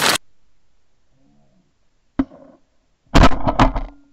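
Shotgun fire: the last of a volley right at the start, a single shot about two seconds in, then several shots in quick succession near the end.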